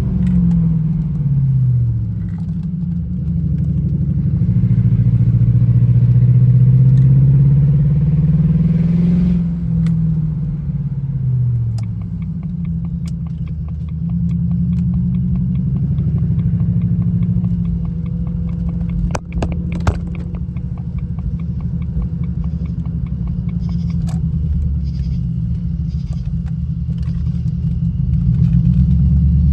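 Jaguar XJR engine pulling the car along, its pitch rising and falling through the first ten seconds as it accelerates and shifts, then running steadily. The car has an intermittent misfire that the owner puts down to a faulty cylinder 4 fuel injector, felt as hesitation at low speeds.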